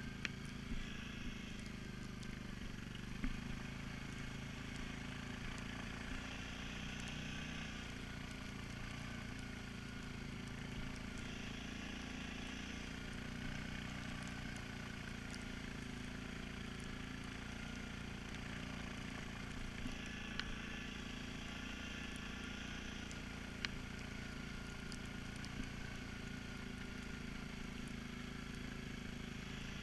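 Suzuki King Quad 750 ATV on Kimpex Commander WS4 snow tracks, its single-cylinder engine running at a steady cruising pace with the hum of the tracks. A few sharp knocks stand out, the loudest about three seconds in.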